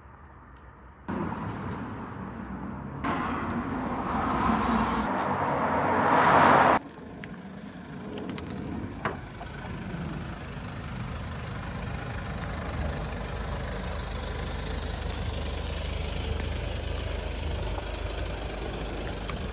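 Van engine running: several seconds of louder, rising noise that drops off abruptly about seven seconds in, then a steady low idle with a single click.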